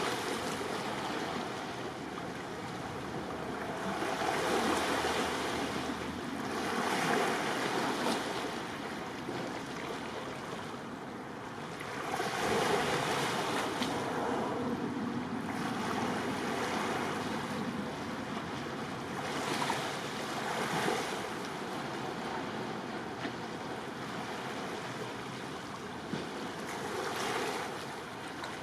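Sea waves washing in at the harbour, the sound of the water swelling and easing every few seconds, with wind on top.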